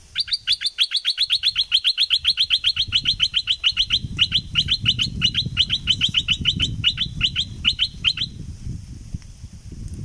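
Bulbul calling in a long, fast run of identical notes, about eight or nine a second, each dropping sharply in pitch. The run stops abruptly about eight seconds in.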